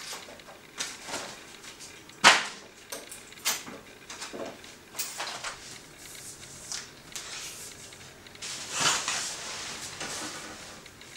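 Scattered knocks, clicks and rustles of someone moving about and handling things in a small room, with one sharp click about two seconds in and a longer rustle near the end.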